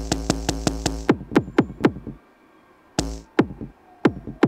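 Electronic kick drum played from a Novation Circuit Tracks' pads while a kick sound is being picked: a fast roll of retriggered hits for about a second, then single kicks tapped out unevenly, each with a quick downward pitch drop.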